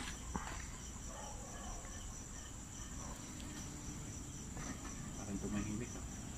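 Crickets chirring, a steady unbroken high trill.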